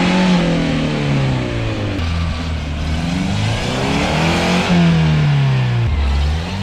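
1985 Toyota pickup's engine revving up and falling back about three times, one climb cutting off sharply near the middle, as the truck churns up a snow pile with its tyres spinning and throwing snow.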